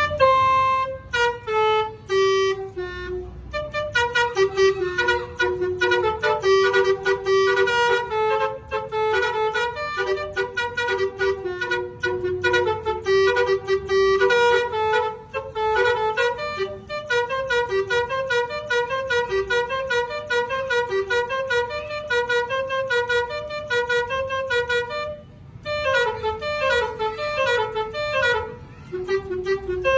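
Basuri telolet horn, a multi-tone vehicle melody horn, playing a fast tune of short, reedy pitched notes, with a brief pause late on.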